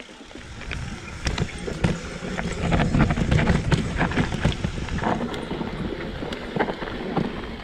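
Mountain bike descending a rough dirt trail: tyre rumble with frequent knocks and rattles over the bumps, and wind on the microphone.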